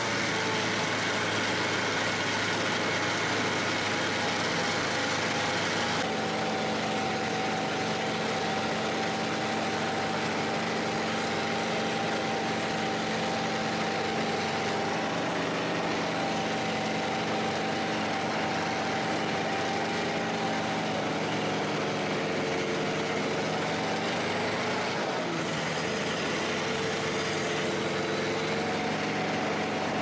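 Snowmobile engine running steadily under way while towing a sled. Its pitch shifts a few times in the second half as the speed changes.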